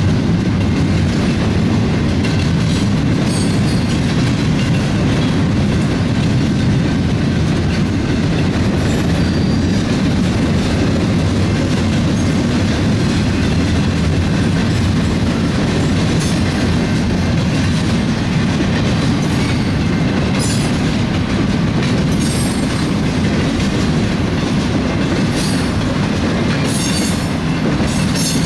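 Intermodal freight train's loaded well cars and flatcars rolling past close by: a steady, loud rumble of wheels on rail with clickety-clack over the rail joints. Brief high-pitched wheel squeals come several times, more often in the second half.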